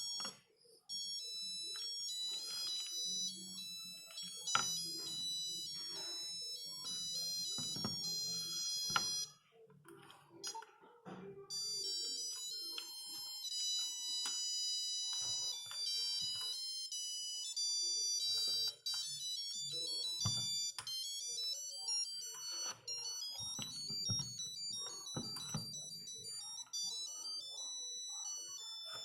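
Nokia 8210 monophonic ringtones playing through the phone's small speaker as simple single-note beeping melodies, one tune after another. There is a short break about nine seconds in before the next tune starts.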